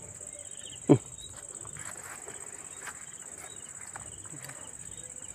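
Steady, high-pitched chirring of insects. About a second in, a person gives one short, loud vocal call.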